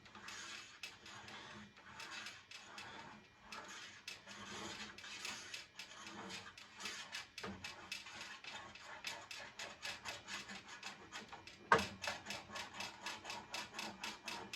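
Back-and-forth rubbing strokes as candle wax is worked into the table saw's top, a few strokes a second and quicker near the end. A single sharp knock about twelve seconds in.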